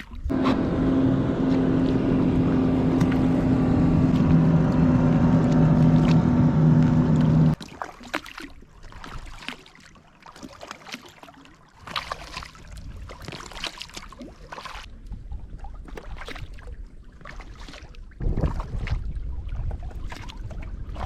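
A boat engine running steadily with a low hum for about seven seconds, then cutting off abruptly. After that come quieter splashes and drips from paddling, and near the end low wind rumble on the microphone.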